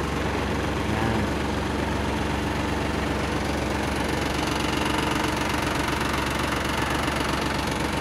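Diesel engine of a Kubota Sunshine Grandel GL21 compact tractor running steadily while the tractor drives in reverse in fourth gear, low range.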